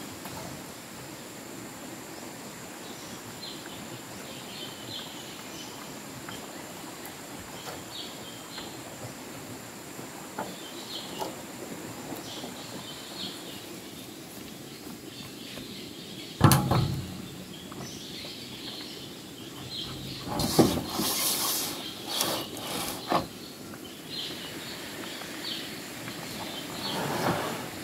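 Forest ambience: short high bird chirps repeating over a steady high insect whine. A single sharp, loud knock comes partway through, and a few seconds later a cluster of knocks and clatter.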